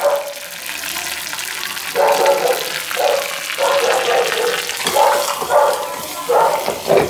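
Hot oil sizzling with mustard seeds and curry leaves in a small tempering ladle (tadka), which is then tipped into ground coconut chutney and stirred in. From about two seconds in, short pitched calls of about half a second sound over the sizzle, roughly one a second.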